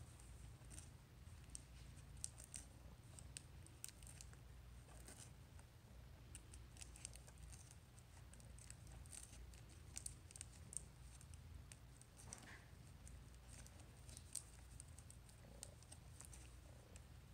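A cat's tongue licking sticky packing tape on a cardboard box: faint, irregular sticky clicks and crackles, a few a second, over a low steady hum.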